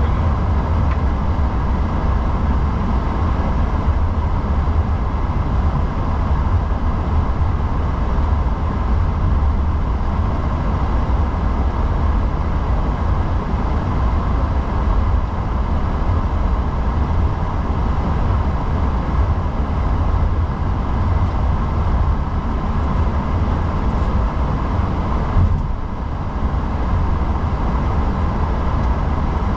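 Steady cockpit noise of an Airbus A340-600 taxiing: a constant low rumble with a thin, steady hum on top.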